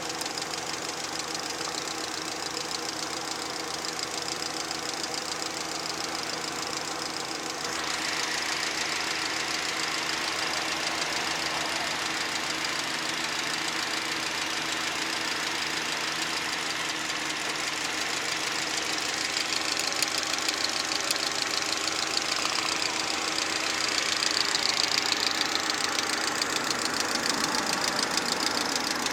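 VAZ-2110 16-valve four-cylinder engine running with a knock in it. It gets louder about eight seconds in.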